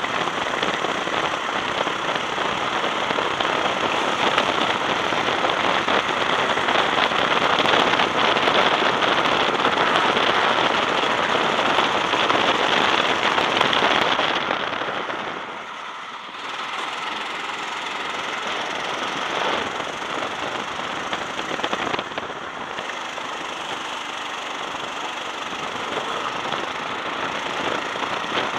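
Honda-powered go-kart engine running hard with wind rushing over the onboard microphone. About fourteen seconds in the sound drops away briefly, then comes back at a lower, steady level.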